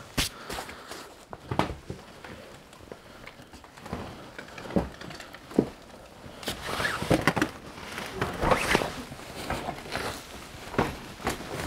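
A person clambering over collapsed floorboards and brick rubble: scattered knocks, scrapes and crunches of debris underfoot, busiest in the second half.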